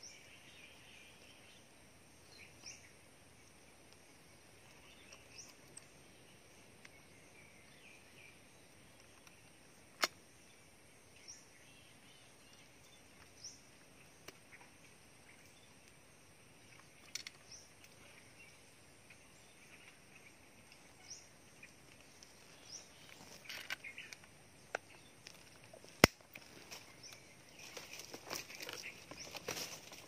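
Scoped air rifle fired twice, two sharp short shots about sixteen seconds apart, the second louder, over faint bird chirps. Leaves and clothing rustle near the end.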